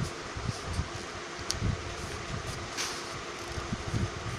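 A sheet of paper being handled and folded, with brief crinkles and soft low thumps, over a steady background hiss with a faint hum.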